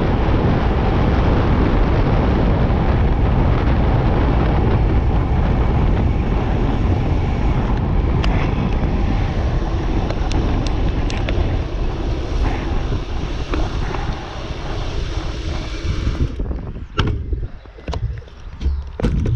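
Loud wind rush over the microphone of a bike-mounted camera on a fast road-bike descent. About three seconds before the end it eases off as the bike slows, and a few sharp clicks and knocks come through.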